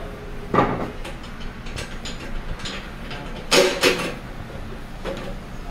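A few knocks and clatter from a car radiator being handled in a steel stand: one knock about half a second in and a quick run of two or three about three and a half seconds in, with lighter clicks between.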